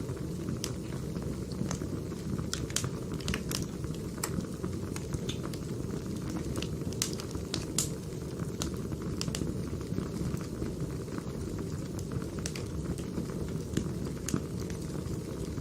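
Burning firewood crackling: a steady low rumble of flames with irregular sharp pops and snaps scattered throughout.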